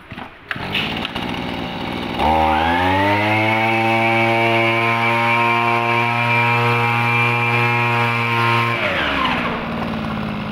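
Small 23 cc TL231 two-stroke engine idling. It is throttled up at about two seconds in, held at full speed for about six seconds while driving a hedge-trimmer and leaf-blower head through a flexible shaft, then drops back to idle near the end.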